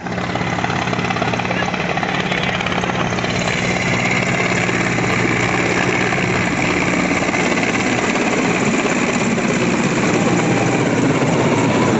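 Large helicopter flying low overhead, its rotor beating in a loud, fast, steady chop.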